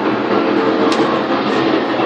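Powerboat engines running at speed, a loud steady drone.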